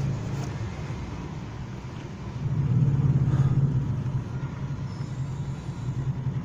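A steady low rumble of a running engine, swelling louder about two and a half seconds in and easing off again after about four seconds.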